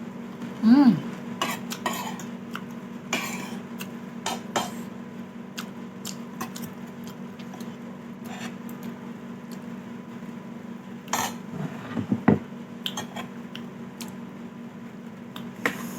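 Cutlery clinking against a bowl while eating soup, in scattered irregular clicks, over a steady low hum.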